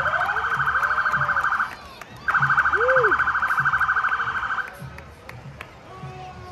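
An electronic siren horn sounds two long blasts of a steady, high, rapidly pulsing buzz. The first blast ends about two seconds in, and the second follows after a short break and lasts a little over two seconds.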